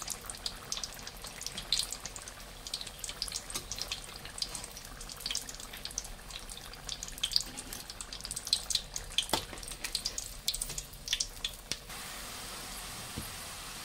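Spring rolls deep-frying in hot oil, crackling with scattered sharp pops. About twelve seconds in the crackling gives way to an even, steady hiss.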